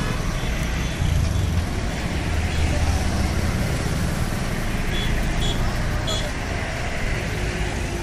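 Street traffic: motorcycle and small truck engines passing close as a steady low rumble, heaviest in the first few seconds. A few short high beeps come between about five and six seconds in.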